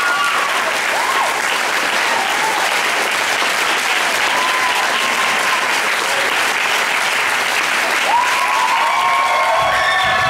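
Audience applauding and cheering, with more whoops and shouts near the end.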